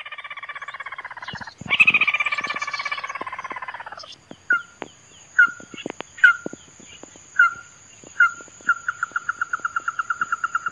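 Animal calls: two pulsing trills in the first few seconds, then short sharp calls about once a second that speed up near the end into a fast, even run of repeated notes. Sharp clicks fall between the calls, over a faint high steady whine.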